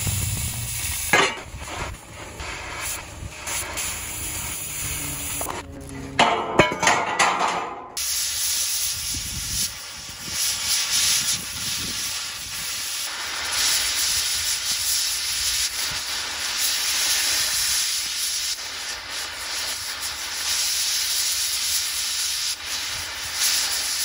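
Oxy-acetylene cutting torch hissing as it cuts steel. It is uneven with sharp cracks and pops for the first several seconds, then settles into a steady high hiss from about eight seconds in.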